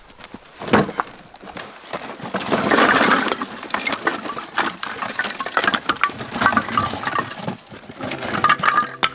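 A run of sharp clicks and knocks over rustling, like things being handled, loudest about three seconds in.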